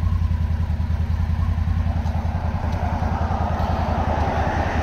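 Can-Am Defender Limited HD10's Rotax V-twin idling steadily with a low, even pulsing. A rushing noise swells in over the second half.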